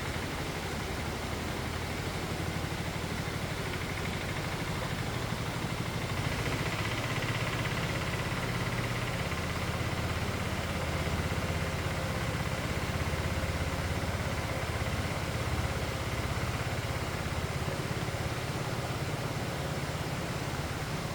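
Forest stream flowing, a steady rushing of water.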